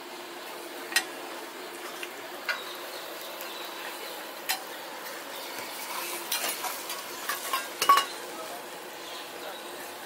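Metal spatula tapping and scraping on a flat dosa griddle: a few sharp, separate clinks, then a busier run of clinks and scrapes in the second half, loudest about eight seconds in, over a steady hiss.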